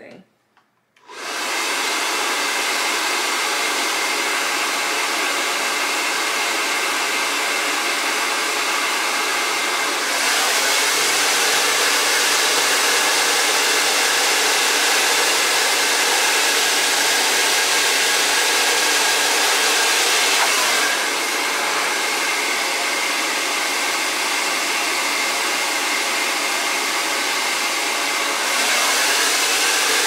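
Hand-held hair dryer switched on about a second in, then running steadily on its high heat setting while blow-drying hair; its loudness steps up and down a few times.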